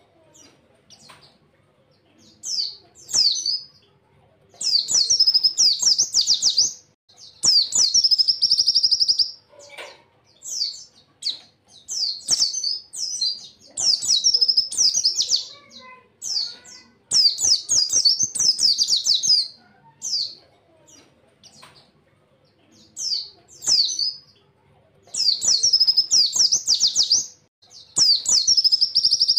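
White-eye (pleci) singing: bursts of rapid, high, warbling trills, each a second or two long, repeated over and over with short pauses between.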